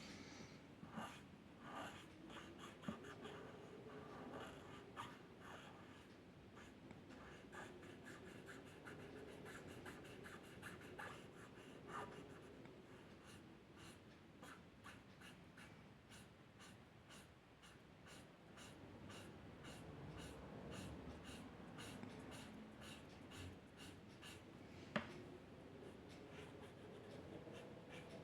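Faint scratching of a drawing tool on paper: many short, quick strokes in a row, with one sharper tick near the end.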